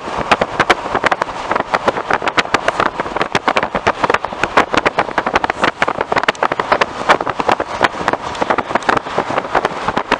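A car driving, heard with a rapid, irregular crackling and buffeting noise of several bursts a second.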